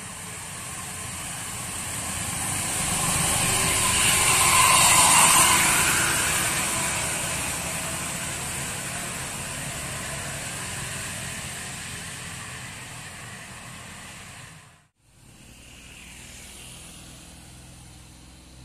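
Bus passing close by on a steep hill road: its engine and tyre noise build to a peak about five seconds in and then fade away, with motorcycles mixed in. After a sudden cut near the end, quieter traffic goes on.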